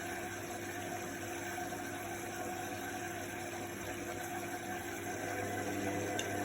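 Indesit front-loading washing machine running on its quick wash programme: a steady hum with the hiss of water in the drum.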